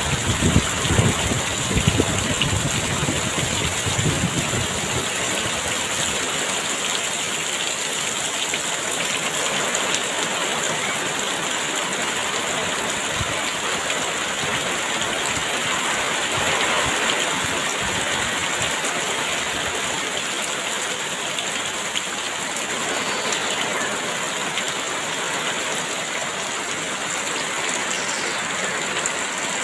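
Heavy rain pouring steadily in a dense, even hiss. A low gusting rumble of wind rises under it during the first few seconds, then fades.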